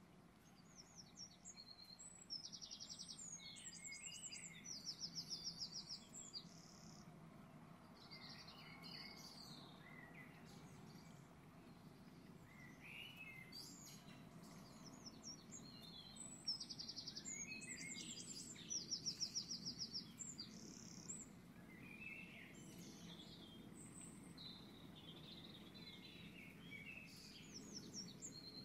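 Songbirds singing and chirping over a low, steady background hum. There are two long runs of rapid high trills about fourteen seconds apart, with scattered chirps between them.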